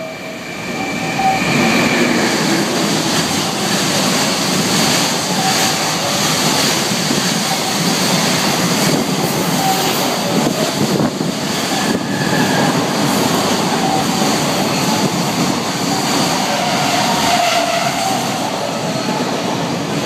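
A freight train of container wagons passing through a station at speed: a steady loud rush and rattle of steel wheels on the rails, building over the first couple of seconds as the locomotive arrives, then holding as the wagons roll by.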